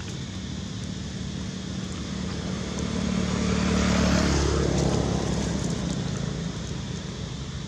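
A motor vehicle driving past, its engine swelling to a peak about four seconds in and then fading away, the pitch dropping as it passes.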